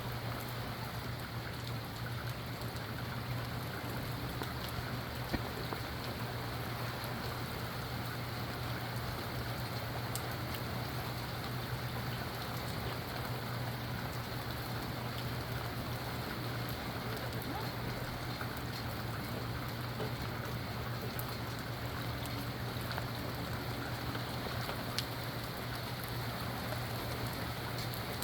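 Steady rain falling and pattering on surfaces, with a steady low hum underneath and a couple of sharp drop ticks, one about five seconds in and one near the end.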